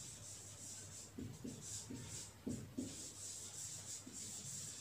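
Marker pen writing on a whiteboard: a run of short scratchy strokes as letters are drawn.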